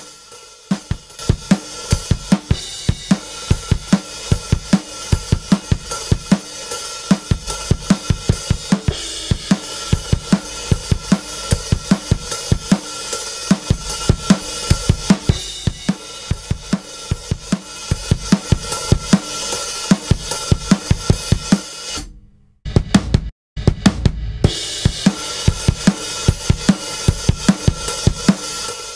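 Recorded drum kit groove played through a compressor plugin: kick, snare, hi-hat and cymbals in a steady beat. It cuts out briefly twice about 22 seconds in, then carries on.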